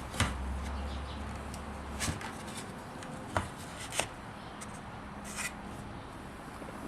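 Scattered clicks and taps of a wooden sample piece and tools being handled. A low steady hum runs through about the first two seconds.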